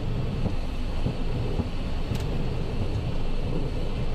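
Steady low rumble of airflow and engines heard inside an airliner's cockpit during the approach and landing, with a brief click about two seconds in.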